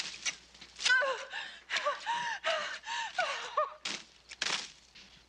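A woman's strained gasps and grunts of exertion, short cries that rise and fall, mixed with sharp rustling bursts as tree branches are torn and thrashed.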